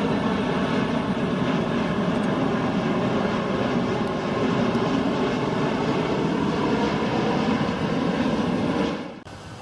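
Airliner passing low overhead: a loud, steady jet-engine noise that cuts off suddenly near the end.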